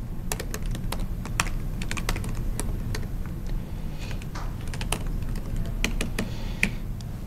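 Typing on a laptop keyboard: irregular key clicks, several a second, over a steady low hum.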